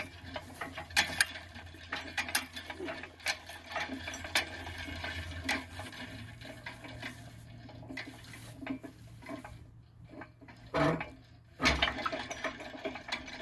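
Irregular metallic clinks and rattles from a homemade scrap-metal crane as it is rolled and steered by hand, with two louder clatters near the end.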